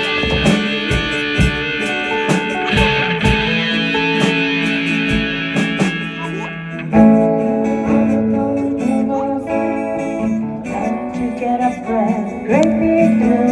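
Live band music led by electric guitar, with drum hits and cymbal wash. About seven seconds in the cymbals fall away and held guitar notes ring on.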